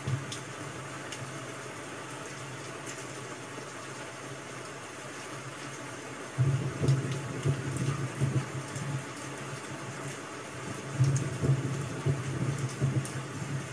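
Steady rain, an even hiss with scattered light ticks. About six seconds in, an uneven low rumble rises under it and comes and goes, loudest near the start of that stretch and again around eleven seconds.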